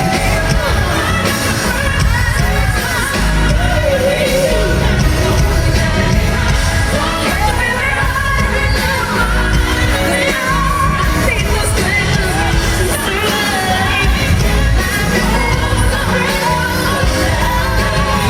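Live pop ballad: a female lead singer's sliding vocal runs over a full band, as heard at a live concert.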